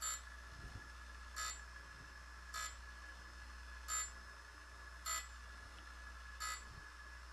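A short beep repeating six times, about one every 1.3 seconds, over a steady low hum.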